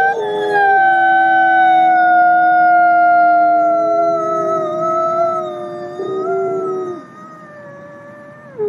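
Gray wolf howling: long, smooth howls slowly falling in pitch, two voices overlapping. The lower howl stops about seven seconds in, and the higher one holds on until it drops off sharply at the very end.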